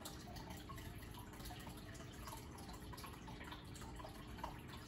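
Aquarium water bubbling and trickling as streams of air bubbles rise and pop at the surface, many small irregular drips and pops over a faint steady hum.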